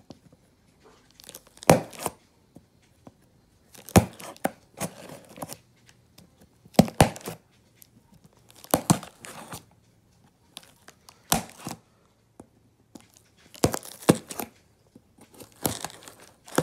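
Packing tape on a cardboard box being cut with scissors and ripped free in a series of short separate rips, about one every two seconds, each starting with a sharp snap.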